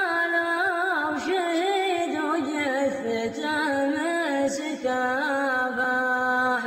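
Background music: a solo voice singing long, held phrases with ornamented, wavering turns.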